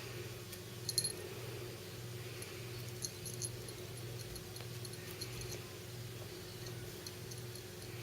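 A kitten playing with a plastic twist tie: a few small sharp clicks about a second in and again around three seconds in, with light tinkling rattles, over a steady low hum.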